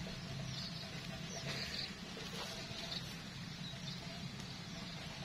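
Quiet outdoor ambience: a steady low hum with a few faint, short, high-pitched bird chirps scattered through it.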